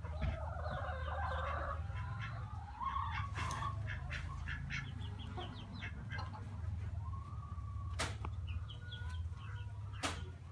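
Caged chickens clucking and calling in short, irregular notes over a steady low hum, with two sharp clicks near the end.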